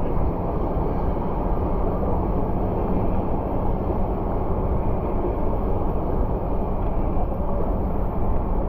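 Steady low rumble of a small outboard-powered boat sitting in a fast, turbulent current: engine and rushing water blended together, unchanging throughout.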